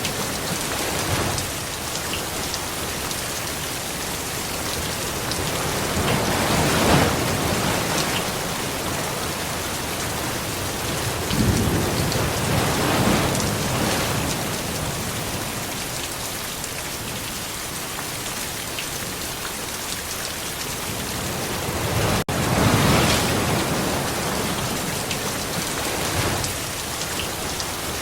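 Steady rain with three low rumbles of thunder swelling up and fading, about a quarter of the way in, around the middle, and about four-fifths through. The sound cuts out for an instant just before the last rumble.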